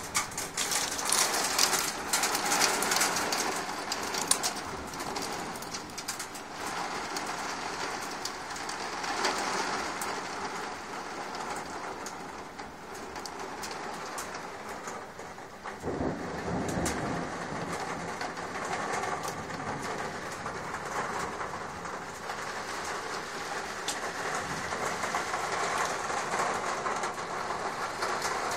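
Heavy downpour in a thunderstorm: rain pouring and pattering on surfaces, with a low rumble about halfway through.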